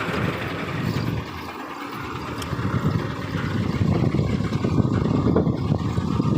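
Engine of a fully loaded 1985 Bedford truck running with a rapid pulsing beat. It dips briefly about a second in, then grows louder and stays loud.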